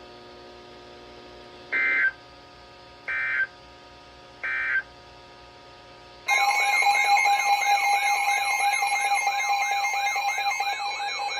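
NOAA Weather Radio alert audio: three short, evenly spaced data bursts, the Emergency Alert System's end-of-message code. About six seconds in, a loud warbling alert alarm starts, heralding the next severe thunderstorm warning.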